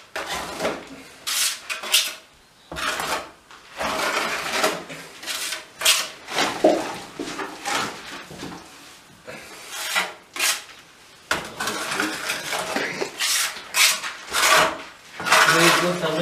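A plastering tool scraping over a wall in repeated rasping strokes, some short and some a second or more long, as the plaster is worked flat so it does not bulge.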